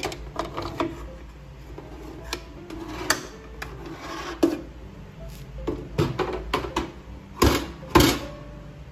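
A metal baking tray being gripped, slid out over a toaster oven's wire rack and lifted clear with a tray gripper. It makes a scatter of clicks, scrapes and light metal clanks, and the two loudest knocks come near the end.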